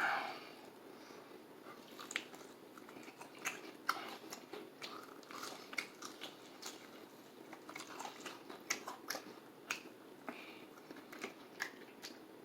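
Close-up chewing and biting of fried chicken: a quiet, irregular run of small crunches and wet mouth clicks.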